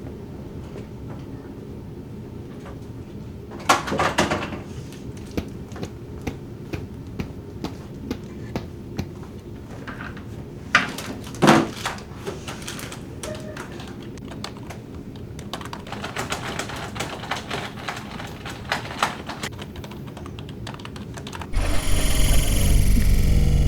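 Typing on a computer keyboard: scattered key clicks, two louder knocks, then a quick run of keystrokes over a low steady hum. Near the end a loud rushing noise comes in suddenly and drowns it out.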